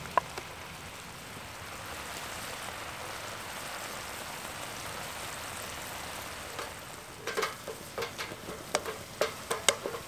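A creamy bacon and mushroom sauce bubbling and sizzling steadily in a frying pan over a wood-fired camp stove as the cream cooks down and thickens. From about seven seconds in, a wooden spatula scrapes and knocks against the pan in a quick irregular series as the sauce is stirred.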